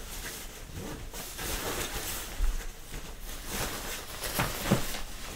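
Rustling of a sleeping bag's windproof, waterproof shell fabric as a man lies inside it, zips it up and pulls it around himself, with a few sharper rustles.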